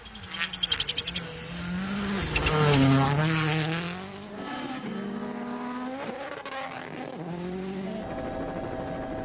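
Rally car engine revving hard, its pitch climbing and dropping as it shifts gears, with a rapid crackle of pops in the first second. Near the end it gives way to a steady droning hum.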